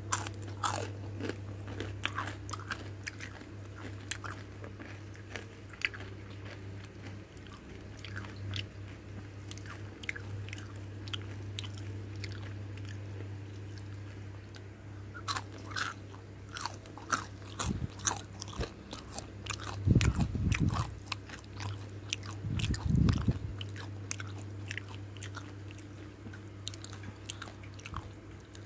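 Crunching and chewing of crispy deep-fried battered food close to the microphone: many short, sharp crackles, with a steady low hum underneath. Twice, about two-thirds of the way through, there are heavier, louder bites.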